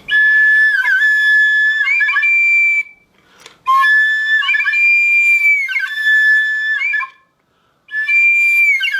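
Flauta de émbolo, a flute with no finger holes whose notes are set by a ball moving inside it, blown in three long phrases. Each phrase steps between a few steady high notes, with short breaks for breath between them.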